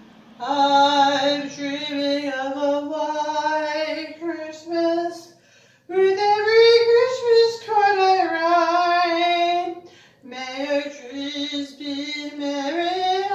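Solo unaccompanied voice singing, in three phrases of long held notes with short breaks between them.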